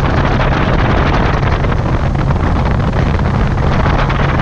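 Steady wind buffeting the microphone on a small open boat under way, with a low, steady drone underneath.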